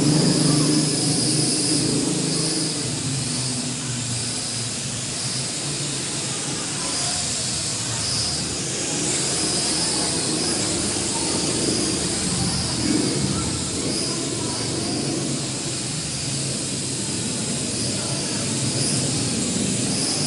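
L6036 quadcopter hovering: its motors and propellers buzz steadily, a little louder at the start, then holding level with small shifts as it moves about.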